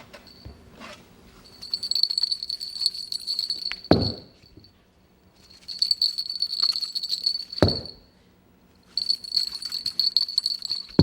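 A small bell jingling in three bursts of about two seconds each, as if shaken or batted, with short pauses between the bursts. Each burst ends in a short low thump.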